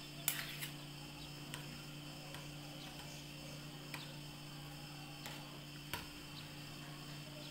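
Light clinks of two metal spoons scraping against each other and tapping the glass rims as whipped coffee foam is spooned onto glasses, about eight irregular clicks, the loudest just after the start. A steady low hum runs underneath.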